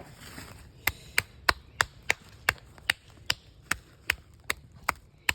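A steady run of sharp, evenly spaced knocks, about three a second, beginning about a second in.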